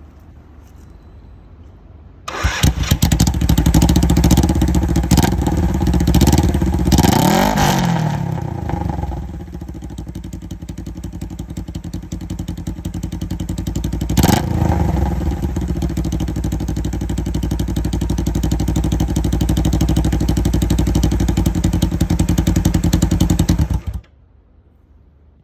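Suzuki GS400 four-stroke parallel-twin engine running through Marving exhaust pipes with brass silencers. It starts up about two seconds in and is revved several times, settles to a steady idle with one sharp blip midway, then cuts off suddenly near the end.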